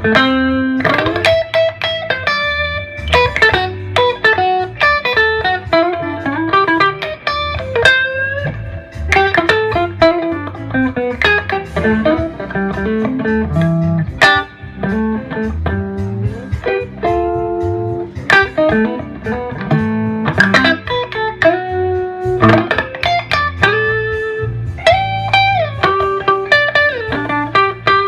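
Gibson ES-339 semi-hollow electric guitar through a Gibson GA30RVS tube amp, playing a melodic lead line of picked single notes with string bends, over a steady bass part.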